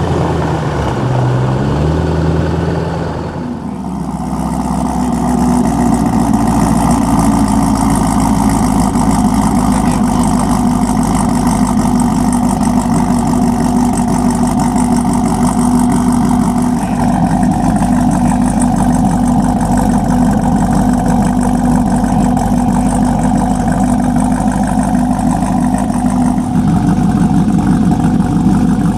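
A V8 car engine idling steadily. For the first few seconds a different engine sound rises and falls in pitch, then breaks off suddenly and gives way to the idle.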